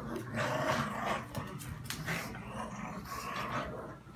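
Two pugs growling in play as they pull at a toy in a tug of war.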